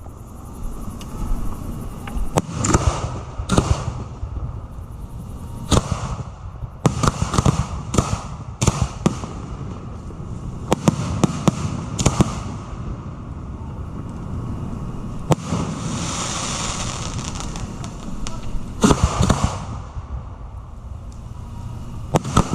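Fireworks display heard up close from the firing site: an irregular run of sharp bangs from shells being fired and bursting. About two-thirds of the way through comes a stretch of hissing.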